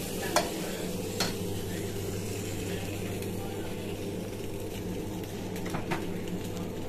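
Penne pasta sizzling as it is stir-fried in a wok over a gas burner, with a metal spatula scraping it around and knocking against the wok a few times: sharply about half a second in, again just after a second, and once near the end. A steady low hum runs underneath.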